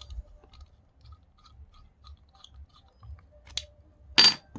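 Small clicks and taps of spinning-reel handle knob parts being handled as the knob's end cap is unscrewed, with a short click and then a louder, sharper click near the end.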